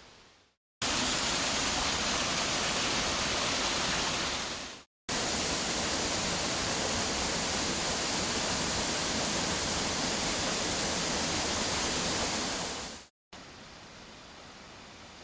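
Waterfall, a loud steady rush of falling water. It cuts out abruptly about five seconds in and again near thirteen seconds; after the second cut only a much quieter hiss remains.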